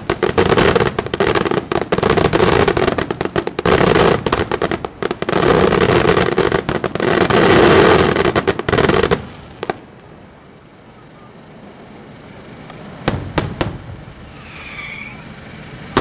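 Aerial fireworks display: a dense barrage of shell bursts and crackling stars going off in rapid succession, which stops abruptly about nine seconds in. A few more sharp bangs follow near the end.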